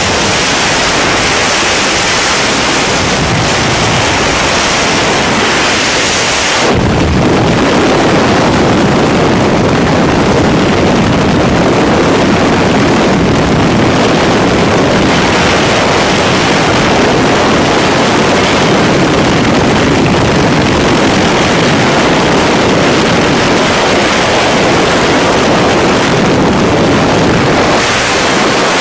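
Freefall wind rushing over the camera's microphone in a skydive, a loud steady roar of air. About seven seconds in, the rush abruptly turns deeper and less hissy.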